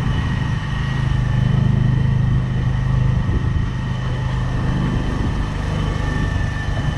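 Motorcycle engine running steadily at low road speed, its note swelling slightly about a second in, with a faint steady high whine above it.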